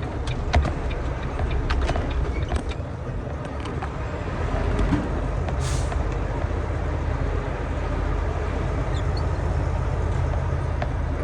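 Semi truck's diesel engine running at low speed, a steady low drone, with a few clicks and a short hiss about halfway through.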